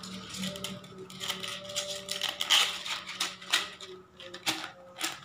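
Irregular rustling and light clicking as blue nylon rope is pulled and a black plastic flowerpot is handled and lifted in its rope hanger.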